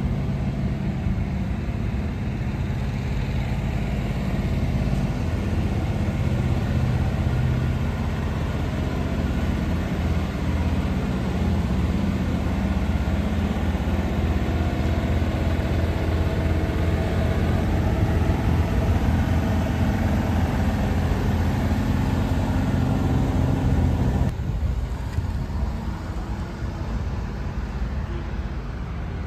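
Heavy truck diesel engine running with a steady low drone, growing slightly louder before the sound drops and changes about 24 seconds in.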